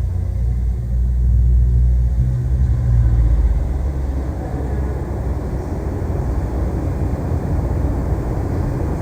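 Urban residential ambience dominated by a low rumble of road traffic. It swells for a couple of seconds about a second in, then settles to a steady level.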